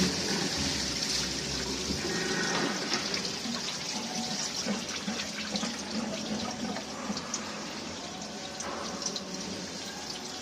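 Liquid running and splashing as a steady hiss, with scattered small drips or clicks, slowly getting quieter.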